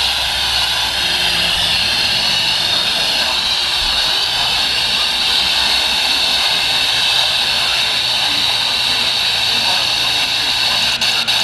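Steady loud hiss of radio static from a weakly received NOAA Weather Radio broadcast, with a string of crackling clicks near the end.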